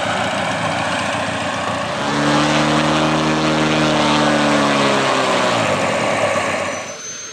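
Large-scale RC aerobatic model plane's propeller engine running up on the ground. About two seconds in it goes to a higher, louder steady pitch, holds it for about three seconds, then winds back down. Near the end a thin, high, rising whine sets in.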